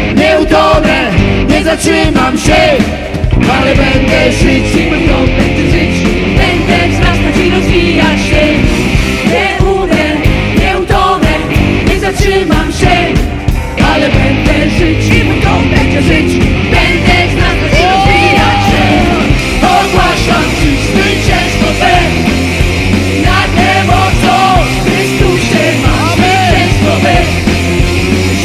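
Live worship band playing a loud, driving rock song, with singing over the full band.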